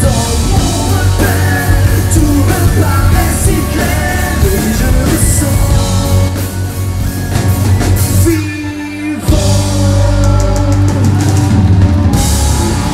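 Live rock band playing loud, with a lead singer over guitars and drums. About eight and a half seconds in, the drums and bass drop out for under a second while a held note carries on, then the full band crashes back in.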